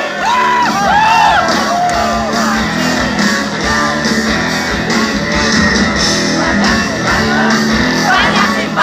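Live rock music with a crowd singing and shouting along.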